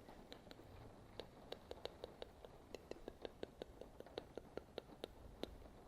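Fingernails tapping lightly on a pair of eyeglasses: a quick, irregular run of small sharp clicks, several a second, over a faint steady hiss of background rain.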